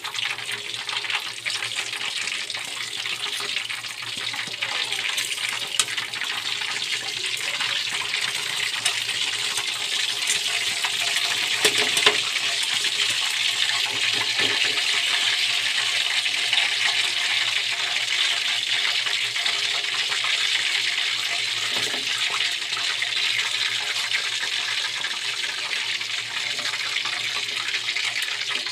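Chicken pieces deep-frying in hot oil in a metal wok: a steady loud sizzle, with a few sharp clicks of tongs against the wok.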